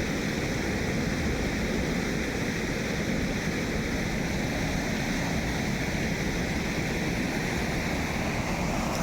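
Steady rushing of flowing water, an even roar without a break.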